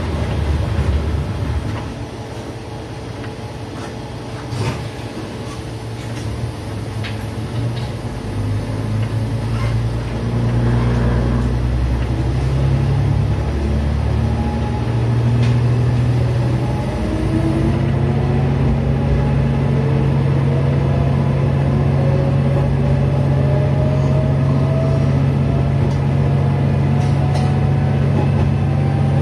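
Diesel railcar pulling away from a station, heard from the cab. The engine note grows louder about ten seconds in. A rising whine then climbs steadily as the train gathers speed.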